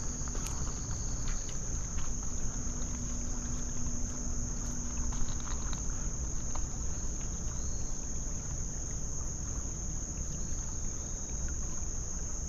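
Steady, high-pitched drone of insects singing in chorus, cricket-like, over a low background rush, with a few faint scattered clicks.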